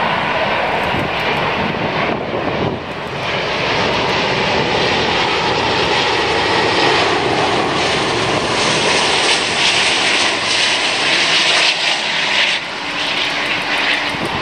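Airbus A380's four Rolls-Royce Trent 900 jet engines on final approach as the airliner passes low: a steady, loud jet rush that grows louder and more hissing past the middle, then eases slightly near the end.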